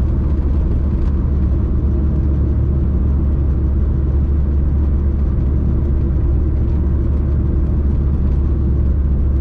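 A 1981 Volkswagen Rabbit pickup driving along, a steady low drone of engine and road noise that holds an even pitch with no revving or gear changes.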